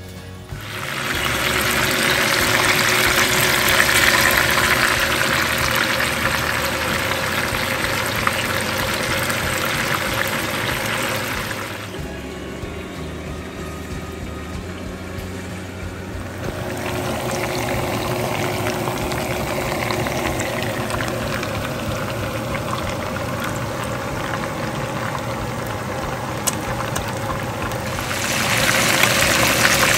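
Kitchen tap water running steadily into a metal sink as fish are rinsed, with a quieter break about twelve seconds in before the rushing returns. Near the end, hot oil sizzles louder as whole fish deep-fry in a pan.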